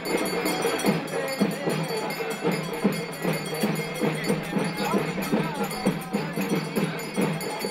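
Percussion played in a fast, steady beat for a Hindu festival procession, with a few voices calling over it.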